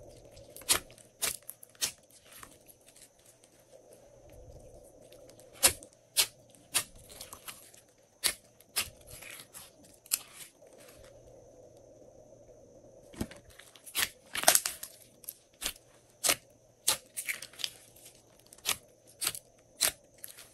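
Glossy slime being stretched, folded and pressed by hand, giving sharp sticky pops and clicks at irregular intervals, several in quick clusters, the busiest stretch in the second half.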